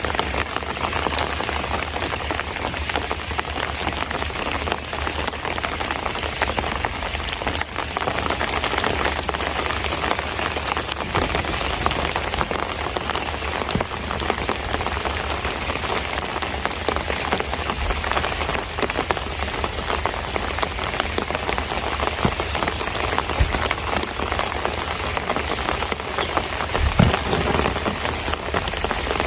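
Steady summer monsoon rain falling, with many individual drops ticking on nearby surfaces. A single low thump near the end.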